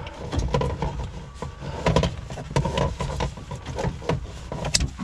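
Wire cutters snipping through the wiring harness of a car's climate control unit, with a series of irregular sharp clicks amid the rustle of wires and plastic being handled.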